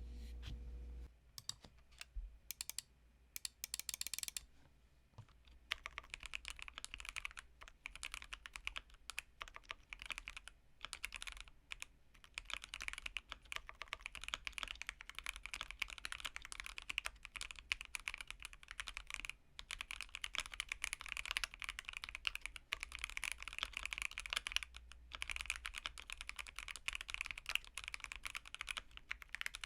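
Typing on a Keychron Q1 mechanical keyboard fitted with Aqua King linear switches on a polycarbonate plate, tuned with a Taobao kit. A few scattered keystrokes come first, then steady, fast typing from about six seconds in.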